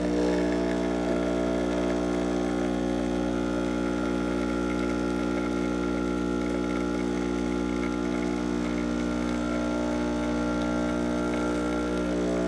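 Breville Dual Boiler espresso machine's vibratory pump humming steadily while it pushes water through the coffee during a pressure-profiled extraction.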